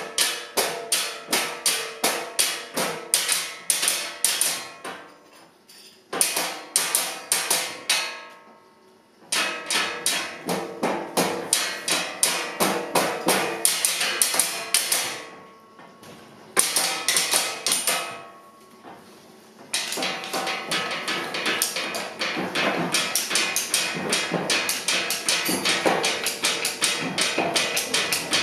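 Percussion played with sticks on a tabletop: fast, even strokes, several a second, broken by short pauses. From about two-thirds of the way in the strokes become denser and run on without a break.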